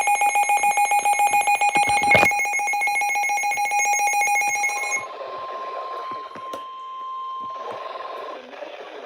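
Midland weather radio alert alarm: a loud, rapidly pulsing electronic beep for about five seconds, with a sharp click about two seconds in. It then stops, and a quieter steady single warning tone from the NOAA Weather Radio broadcast plays through the radio's speaker over static hiss for about three seconds before cutting off.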